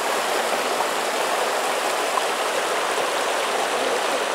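Small mountain creek flowing and splashing over rocks in little cascades, making a steady rush of water.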